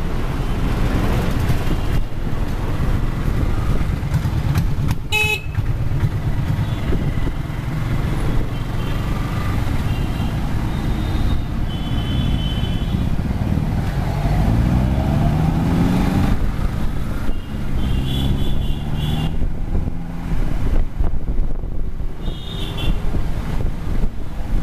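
Motorcycle riding through city traffic: the bike's engine runs under a steady low rumble of wind and road noise, its revs rising as it pulls away about halfway through. Several short vehicle horn toots sound from the surrounding traffic in the second half.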